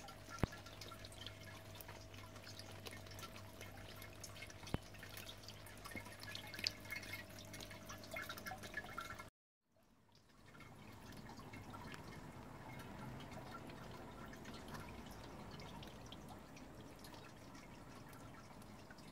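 Water dripping and trickling in a small homemade 3D-printed water feature, faint, with a low steady hum under it in the first half. The sound cuts out briefly about nine seconds in, then returns as a softer, even trickle.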